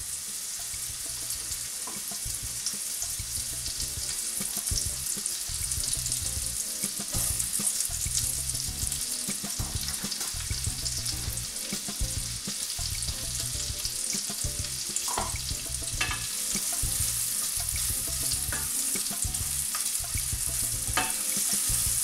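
Chopped onions sizzling in hot sunflower oil and fried masala spices in a stainless steel frying pan: a steady high hiss that grows a little louder in the second half, with a few short clicks.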